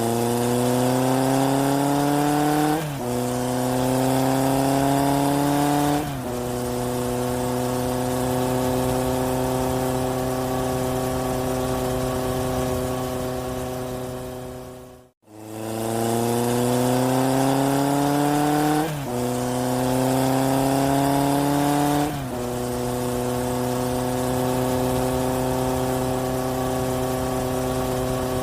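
Inserted engine sound effect of a vehicle accelerating: the pitch rises, drops at two gear changes, then holds a steady cruise. The same clip cuts out about halfway and plays again from the start.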